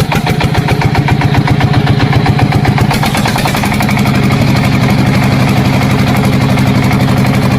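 An engine running with a fast, even pulse: uneven for the first few seconds, then settling into a steady idle about three seconds in.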